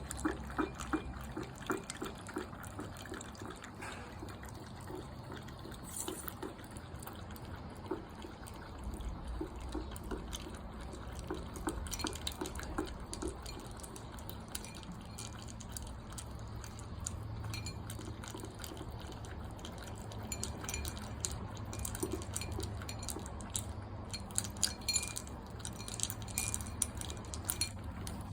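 A dog lapping water from a bowl: runs of quick wet laps, about three a second, with pauses and a few light clicks against the bowl.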